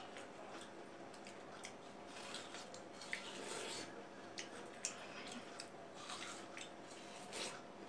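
Two people biting into and eating juicy watermelon slices: many short wet, squishy bites, lip smacks and chewing sounds, with a few brief slurps.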